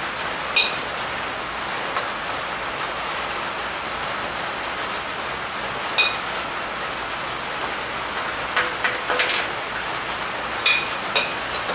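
Short metallic clicks and clinks as a crankshaft pulley is fitted onto a freshly assembled VW 1915 cc short block and the crank is turned over by hand to check that it rotates freely. The clinks come singly at first, then in a quick cluster about two-thirds of the way through. A steady rushing hiss lies under them.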